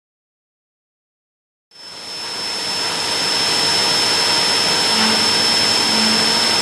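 Silence for the first second and a half or so, then the Leadwell V30i vertical machining centre fades in: its spindle running a drill into brass bar stock under a flood of coolant, a steady noisy spray with a steady high whine over it.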